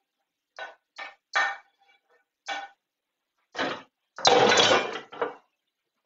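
A serving utensil knocking and scraping against a frying pan as sauce is scooped out onto a plate of pasta: several short clinks, then a longer, louder scrape and clatter about four seconds in, followed by one more knock.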